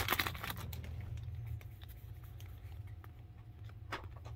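Foil wrapper of a baseball card pack crinkling as it is pulled open, loudest at the start and dying away within the first second, then faint ticks of the cards being thumbed through by hand.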